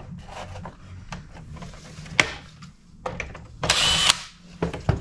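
Clicks and knocks of work on a plastic tool housing, with a brief half-second whir of a small power driver a little under four seconds in, backing out a Torx screw.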